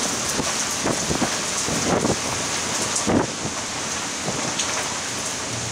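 Torrential thunderstorm rain pouring down, a steady rushing hiss with a few louder swells about one, two and three seconds in.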